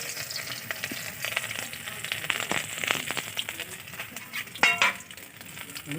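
Ginger paste sizzling and crackling as it fries in hot ghee in a karai, with a short louder scrape near the end.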